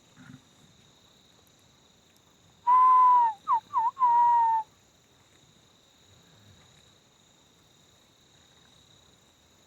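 A loud whistle close by, about three seconds in: a long slightly falling note, two quick rising chirps, then another long falling note, over a steady high drone of crickets.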